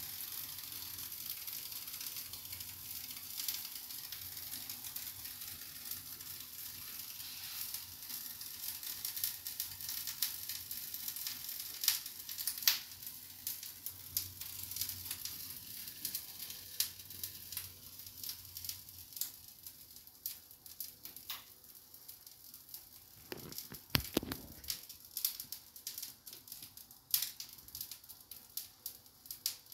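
Faint sizzling hiss with scattered crackles, as of something frying on the stove, thinning out to sparse pops. A couple of low bumps about three-quarters of the way through.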